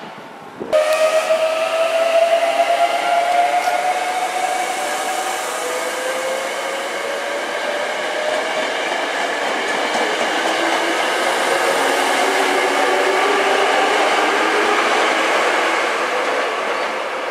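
Hankyu 8300-series electric train running at a station platform: a whine in several tones that slide down in pitch over the first few seconds, then other tones that climb in pitch later, over the rumble of wheels on rail. It starts suddenly about a second in.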